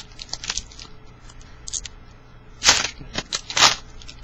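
Foil trading card packs being handled and opened: scattered crinkly clicks of the wrapper, with two louder rasping rustles close together about three seconds in.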